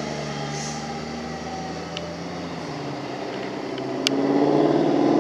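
Fire rescue truck's diesel engine running as the truck drives away, fading out. About four seconds in there is a sharp click, and another vehicle's engine and tyre noise grows louder as it approaches.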